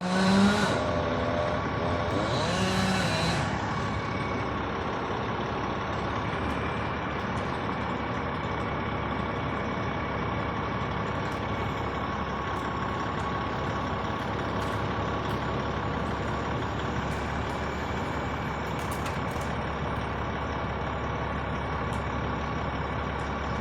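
Heavy truck-mounted crane engine running steadily, with two louder revs in the first few seconds.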